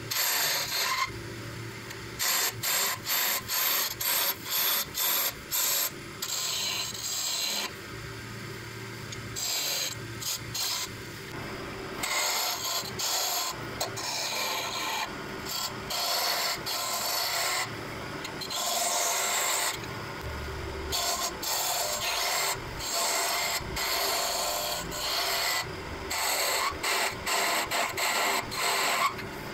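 A turning tool cutting a small wood blank spinning on a lathe, shavings peeling off. The cuts come in short, repeated passes with brief pauses between them.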